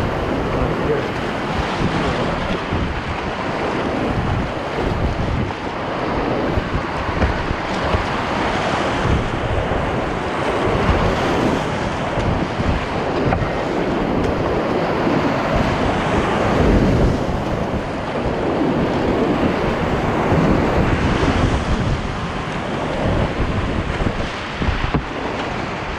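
Whitewater rapids rushing around a kayak running a steep, rocky drop: a loud, unbroken churning rush with uneven surges, water and spray buffeting the action camera's microphone.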